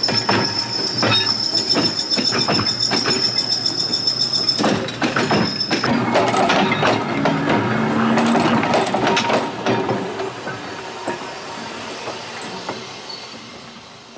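Connecticut Company 500 trolley's steel wheels squealing on the rail with a steady high squeal that stops about six seconds in, over a run of clicks and clacks as the wheels cross rail joints; the sound fades as the car rolls away.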